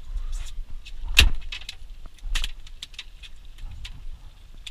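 Sharp knocks and light clattering of gear in an aluminum fishing boat. The loudest knock comes about a second in and another about two and a half seconds in, with smaller clicks between.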